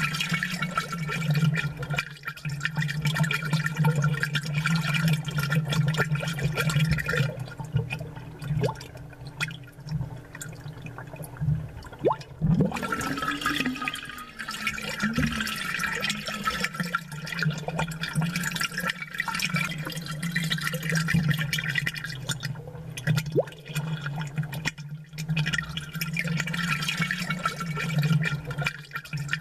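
Amplified aquarium water bubbling over a steady low hum. The bubbling thins out for a few seconds about ten seconds in, then comes back.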